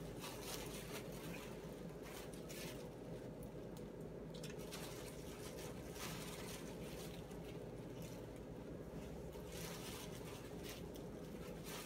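Clear plastic bag rustling and crinkling in short spells every second or two as fish pieces are worked around in breading inside it, over a steady low hum.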